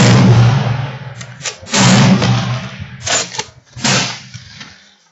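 Rifle shots on a shooting range: two loud reports about two seconds apart, each trailing off with a long echo, then two quieter shots in the second half.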